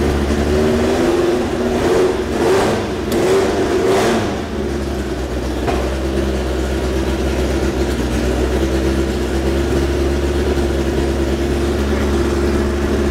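Nissan 2.4-litre naturally aspirated four-cylinder race engine running, blipped a few times about two to four seconds in, then settling into a steady idle.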